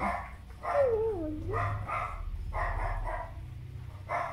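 A dog barking several times in short separate barks, with a wavering, falling whine about a second in.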